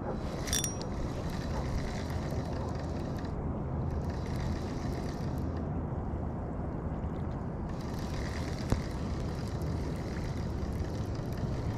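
Steady outdoor background noise: a low rumble with a faint hum and a hiss that comes and goes. A brief sharp click with a faint high ring comes about half a second in.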